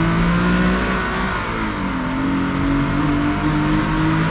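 Nissan V36 Skyline sedan's V6 engine and exhaust under acceleration over steady tyre and road noise. The engine note drops in pitch about halfway through as the revs fall, then climbs steadily again.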